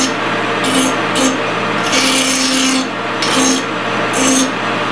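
Hand file rasping against the edge of a metal gear spinning in a lathe, in about five strokes with one longer stroke in the middle, over the steady running of the lathe. The file is taking off sharp, burry edges left by the cut.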